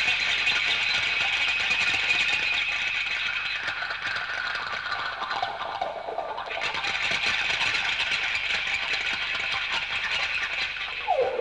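Ambient background soundtrack: a steady, hissing high drone that shifts about six and a half seconds in, with a falling glide near the end.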